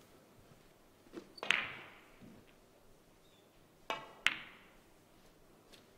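Two snooker shots, each a light tap of the cue tip on the cue ball followed a moment later by a sharper, louder click of ball striking ball. The first comes about a second and a half in, the second about four seconds in.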